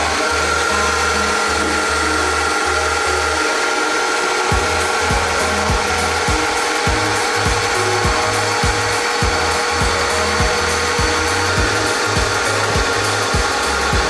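Vertical milling machine running, its cutter machining valve reliefs into a Honda CBR aluminium piston crown: a steady motor whine over continuous cutting noise.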